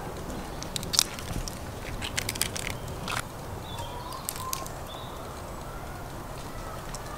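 Boiled crayfish shells cracking and crunching as they are bitten and peeled: a run of sharp cracks and clicks over the first three seconds. From about four seconds in, faint bird chirps sound over a steady low background.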